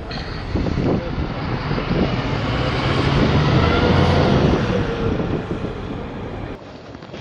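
A motor vehicle passing: a low rumbling noise that swells to its loudest a few seconds in, then fades and drops away near the end.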